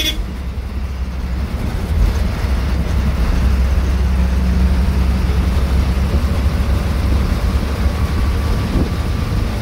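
KSRTC bus diesel engine running steadily as the bus drives along, a loud low drone with road noise, heard from inside the cabin.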